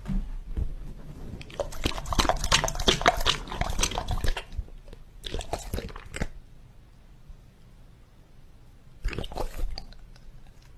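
Pit bull-type dog lapping and slurping liquid from a glass bowl close to a microphone: a long spell of wet, clicky lapping over the first few seconds, a shorter spell about five seconds in, and another brief one near the end.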